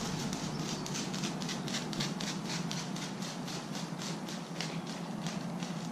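Plastic sheeting crackling as it is handled, a rapid run of crackles about five a second, over a steady low hum.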